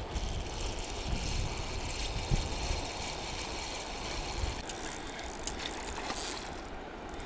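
Spinning reel being cranked as a hooked asp is reeled in, its gears giving a steady whir that turns to a run of sharp clicks about five seconds in. Wind rumbles on the microphone in the first seconds.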